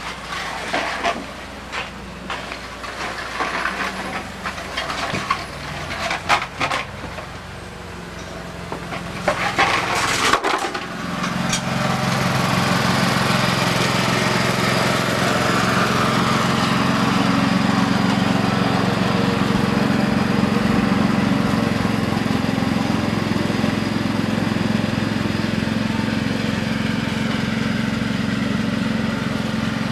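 Scattered knocks and clatter, then, after a sudden break about ten seconds in, a lawn mower's small engine running steadily.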